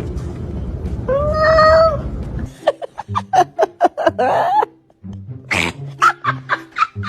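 Cat meowing: one long, drawn-out meow about a second in, then a quick run of short meows and chirps.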